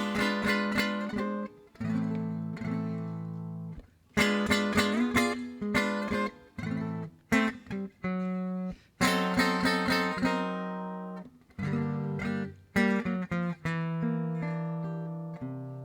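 Acoustic guitar playing a song's intro: chords picked in phrases of a few seconds, each opening with a strong attack and left to ring out, with short breaks between phrases.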